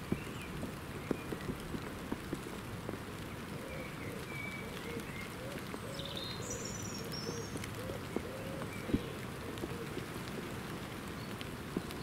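Steady gentle rain falling on wet leaves and a tabletop, with individual drops landing as sharp clicks now and then. Small woodland birds call faintly in the background, with a short high chirp about six seconds in.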